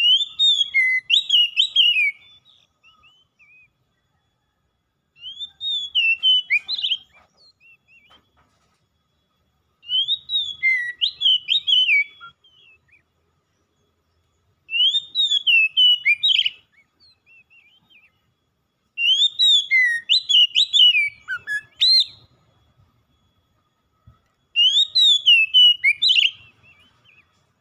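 Male Oriental magpie-robin singing: six phrases of quick whistled and slurred notes, each about two seconds long, with pauses of two to three seconds between them.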